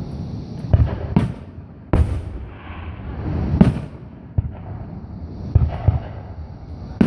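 Aerial firework shells bursting in an irregular run of sharp booms, about seven, with a low rumble carrying on between them.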